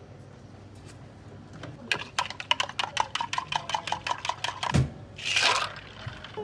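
Ice rattling inside a plastic shaker cup of milk tea being shaken by hand: a quick run of sharp rattles lasting about three seconds. It ends in a thump as the cup is set down, followed by a short burst of hiss.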